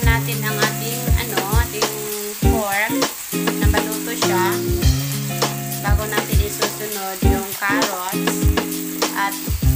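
Diced pork with onion and garlic sizzling in oil in a nonstick frying pan as a wooden spatula stirs it, under background music with a steady beat.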